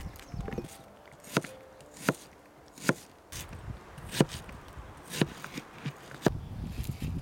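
A kitchen knife slicing a peeled onion on a plastic cutting board: six sharp taps of the blade hitting the board, roughly one a second.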